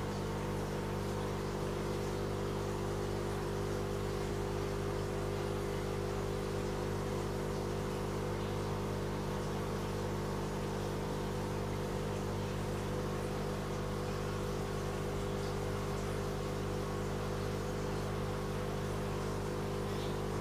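Aquarium air pump humming steadily, with the fine hiss of air stones bubbling in the tank.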